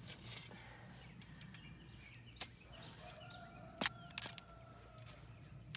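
A rooster crowing faintly: one long held call starting about three seconds in. Over it come a few sharp clicks and knocks from a shovel digging into hard, dry clay soil.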